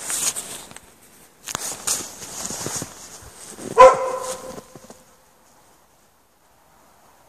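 A dog barks once, loud, about four seconds in. Before the bark there are irregular bursts of hiss.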